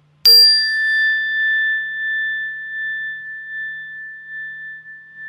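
A metal bell struck once about a quarter of a second in, then one clear high tone ringing on and slowly fading.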